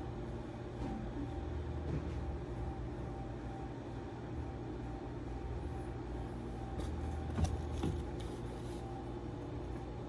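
Steady low hum of room background noise with a faint steady tone, and two light clicks a little past the middle.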